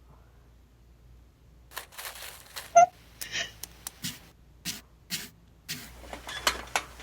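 Crying: a run of short, sniffly sobbing breaths, with a brief high squeak about three seconds in.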